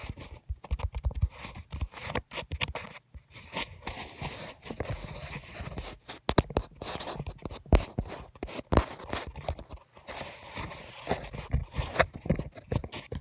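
Close, irregular rustling and crackling, thick with sharp clicks.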